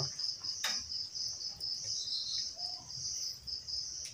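Crickets chirping, a steady high pulsing trill, with a brief click about half a second in.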